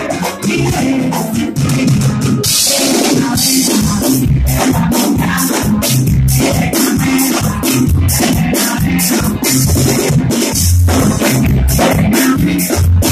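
Live band playing a cumbia on electric guitar, electric bass and drum kit, the bass and kick drum pulsing steadily under busy cymbal strokes.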